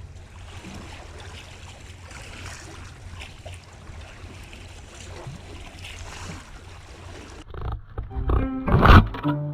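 Wind buffeting the microphone over the wash of the sea, a steady rushing noise with a low rumble. About seven and a half seconds in it gives way to background music with a strong beat, the loudest part.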